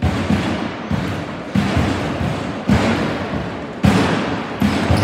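Heavy thuds about once a second, each trailing off in a long echo through the gym.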